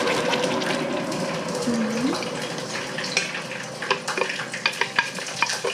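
Blended wet spice paste sizzling as it is poured into hot cooking oil in a steel pot: a steady hiss that thins out, with sharp crackles and pops from about halfway in.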